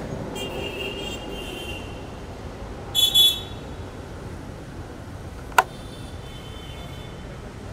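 Street traffic rumbling steadily, with car horns: high horn tones in the first two seconds, then two short, loud honks about three seconds in. A single sharp knock sounds a little after five and a half seconds.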